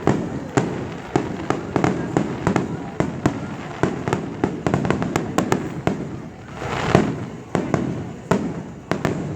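Fireworks going off in a rapid, irregular series of sharp bangs and crackles over a continuous rumble, with a louder boom about seven seconds in.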